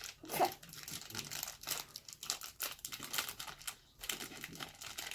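Plastic toy wrapping crinkling and rustling in quick, irregular crackles as a small LOL Surprise doll package is handled and unwrapped.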